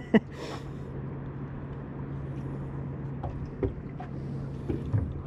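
A boat motor running steadily with a constant low hum, while the boat follows a hooked fish. A few light knocks sound over it, the clearest about three and a half and five seconds in.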